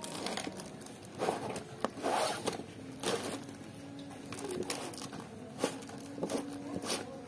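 Cardboard sleeve of an air-rifle box sliding off its inner box, scraping in a few short bursts, with the plastic wrapping inside crinkling.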